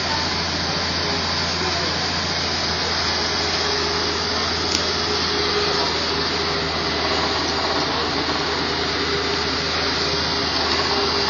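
Tow truck's engine running to drive its loader crane's hydraulics: a steady mechanical hum, with a steady whine joining about three seconds in as the crane works.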